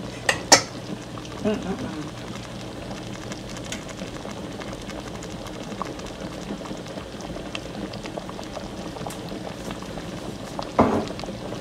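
A pot of Jamaican stew peas simmering on the stove: a steady bubbling hiss with scattered small pops as the bean gravy cooks down. A couple of sharp knocks come about half a second in, and a louder knock comes near the end.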